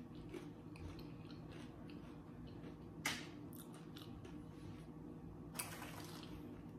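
Faint chewing with scattered small mouth clicks and a sharper crunch about three seconds in. Near the end, a short rustle of tortilla chips in a plastic tub as a hand reaches in.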